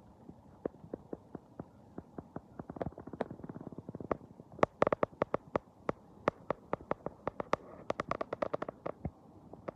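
A rapid, irregular series of sharp clicks and pops, several a second, growing denser and louder about halfway through: an unexplained weird sound over the river recording.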